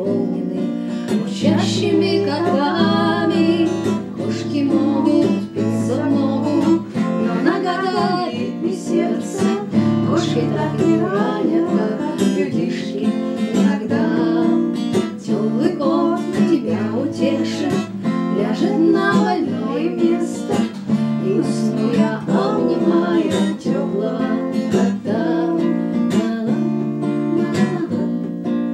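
Acoustic guitar strummed through a song, with a woman singing along.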